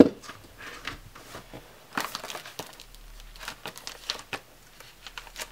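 Plastic sleeves and paper rustling and crinkling as a sticker kit is pulled out of its packaging, with scattered light clicks and taps; the sharpest click comes at the very start.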